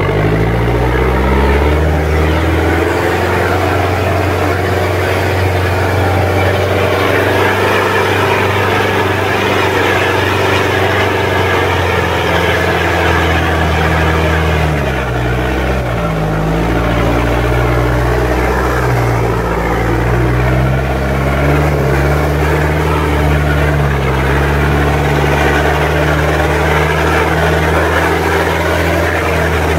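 Off-road vehicle's engine running steadily while driving, heard from inside its open cab. The engine note dips and rises a few times about halfway through.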